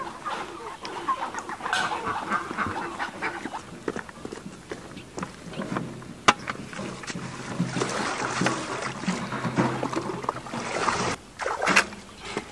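Chickens clucking, then water splashing and sloshing as plastic buckets are dipped into a pond and filled.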